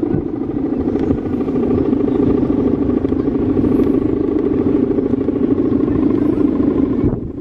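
Kite hummer (guwangan) on a Balinese bebean kite in flight, giving a steady buzzing drone in the wind, with wind rumble on the microphone. The drone breaks off just before the end.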